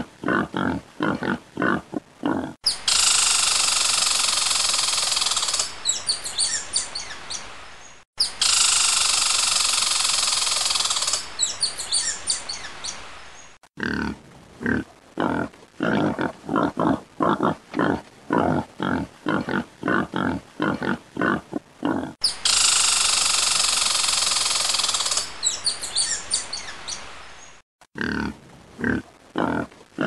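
An animal's short calls repeating about three to four times a second, broken three times by a loud, harsh, hissing screech lasting about three seconds that trails off into crackling.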